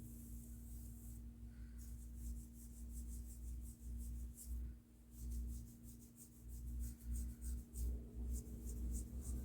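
Hair cracking during a head massage: fingers working and tugging through hair right at the microphone, making a fast, irregular run of fine, crisp crackles that grows denser after about two seconds. A steady low hum sits underneath.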